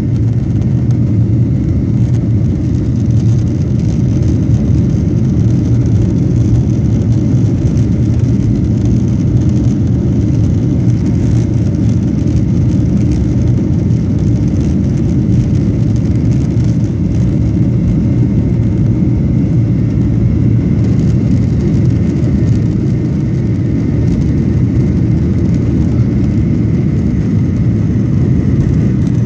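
Boeing 737-900's CFM56-7B turbofan engines at takeoff thrust, heard from inside the cabin over the wing during the takeoff roll and liftoff: a steady, loud, deep rushing noise with a faint high whine above it.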